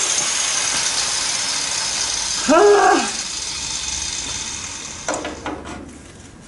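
Electric angle grinder winding down, its hiss fading away over several seconds. About two and a half seconds in, a short squeak rises and falls, and near the end come a few light metal clicks and knocks.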